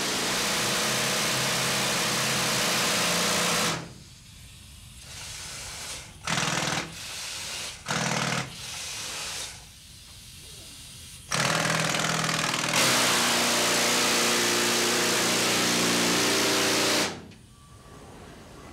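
Pneumatic rock drill hammering into rock in a mine, run in bursts: it runs for a few seconds, stops, gives two short bursts, then runs again for about six seconds before cutting off near the end.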